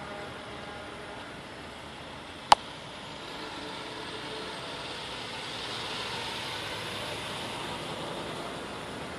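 Semi-truck tractor-trailer driving past, a steady rush of engine and tyre noise that swells as it comes close. A single sharp click about two and a half seconds in.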